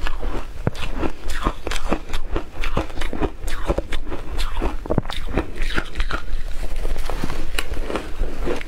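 Shaved ice crunching as it is bitten and chewed, in quick irregular crunches, with a metal spoon scooping through the ice in a glass bowl.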